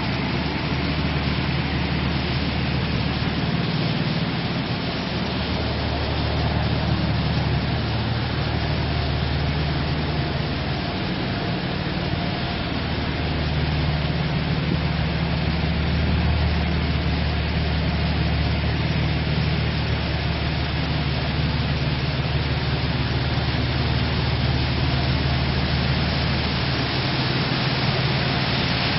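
1990 Nissan Fairlady Z (Z32 300ZX) twin-turbo 3.0-litre V6 idling, a low, even engine and exhaust note that holds the whole time.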